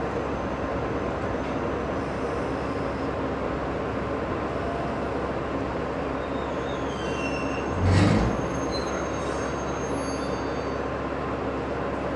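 Diesel railcar running on the rails, heard from inside: a steady rumble, with thin high-pitched wheel or brake squeals from about six to nine seconds in and a single heavy thump about eight seconds in.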